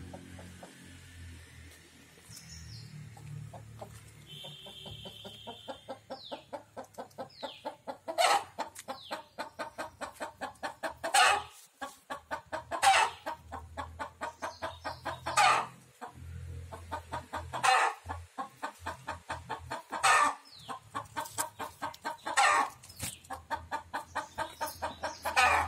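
A hen clucking: from a few seconds in, a rapid, steady run of clucks, several a second, broken every two or three seconds by a louder call.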